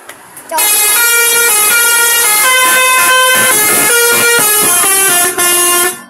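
Telolet horn, a set of roof-mounted musical air horns on a car, playing a loud tune of stepped notes; it starts about half a second in, breaks off for a moment near the end, and sounds again briefly.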